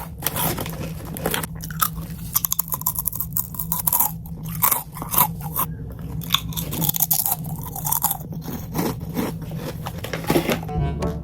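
Close-miked crunchy chewing of a snack, a quick irregular run of crunches and mouth clicks, over a steady low electrical hum.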